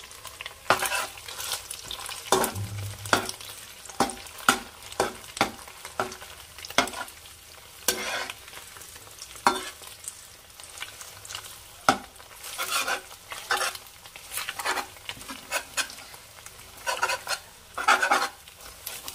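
Egg sizzling as it fries in hot oil in a kadai, while a steel spatula chops it into small pieces. The spatula scrapes and knocks against the pan in irregular strokes over the steady sizzle.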